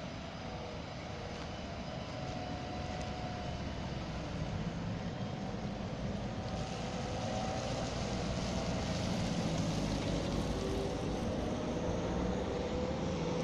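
Electric tram pulling away from a stop and moving off, its traction motors giving a faint whine that shifts slowly in pitch. Under it runs a steady rush of street traffic that grows louder in the second half.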